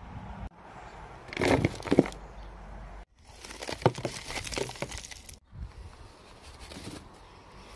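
Substrate and chunks of charcoal poured from a plastic plant pot into a clear plastic tub. A loud crunching rustle comes about a second and a half in. Around four seconds in there is a crackly run of clicks as the charcoal pieces tumble in, then a fainter rustle.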